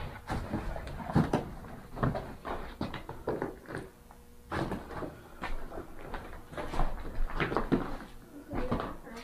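Footsteps crunching and knocking over broken plaster and wood debris on a floor. An irregular run of steps, with a short lull about four seconds in.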